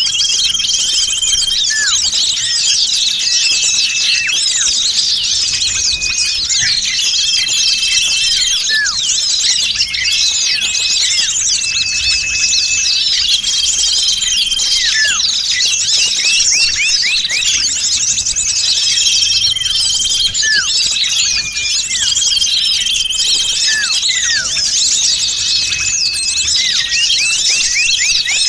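Bird-trapping lure recording: a dense, noisy chorus of many small birds chirping and twittering at once, with short held whistles recurring every couple of seconds and occasional falling notes.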